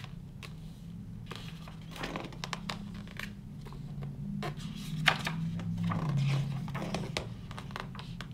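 Paper pages of a large-format art book being turned by hand, with short rustles and soft handling noises as each page is flipped and smoothed down. A low steady hum sits underneath.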